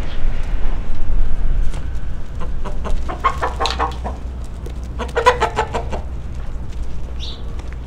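Domestic hens clucking: two runs of quick repeated clucks, about three seconds in and again about five seconds in, with a short high squeak near the end, over a low steady rumble.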